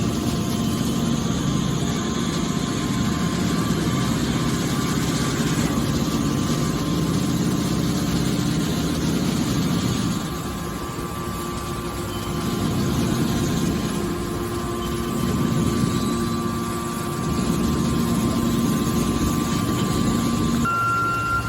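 Hydraulic baler running: a steady machine hum with a few held tones, dipping about halfway through and rising again as the machine works.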